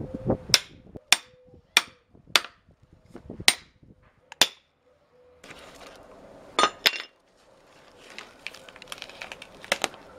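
A hammer striking the back of an axe head driven into a cherry log to split it: about six sharp metallic blows, first every half second or so and then more slowly. Two more sharp knocks come a little after halfway, with lighter clicks near the end as the split halves are worked apart.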